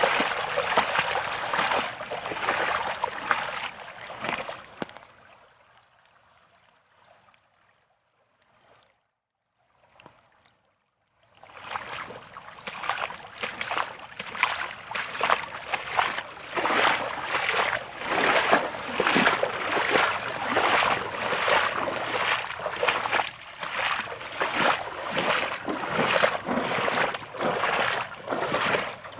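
Muddy floodwater rushing and churning over flooded ground, a steady rushing noise that pulses about twice a second. It fades to near silence about five seconds in and returns about twelve seconds in.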